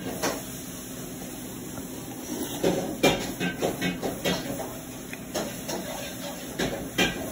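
Clinks and knocks of a spoon and dishes over a steady low hum, with a cluster of knocks a little before the middle and another near the end.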